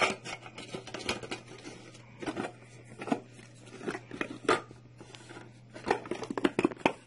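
Aluminium camping mess-kit pots and lid clinking and scraping against each other as they are nested and pressed together, a run of irregular small metal clatters.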